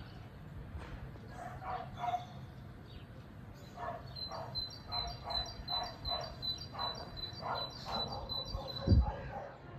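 Repeated short animal calls outdoors, with a bird chirping quickly for about four seconds in the second half. A short, low, falling thump near the end is the loudest sound.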